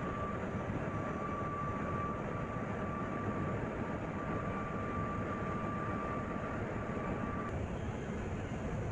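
Ship's engine-room machinery running: a steady dense drone with a thin steady whine on top that stops about three-quarters of the way through.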